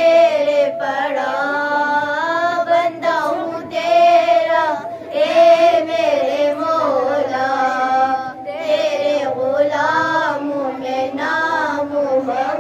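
Young girls singing an Urdu naat together without instruments, one voice into a handheld microphone, in phrases of long held, wavering notes with short breaths between.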